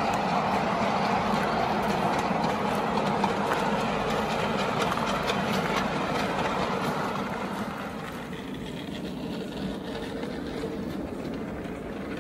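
Wheels of a 5-inch gauge miniature train running along the rails, a steady rolling noise with scattered light clicks. It grows quieter about eight seconds in.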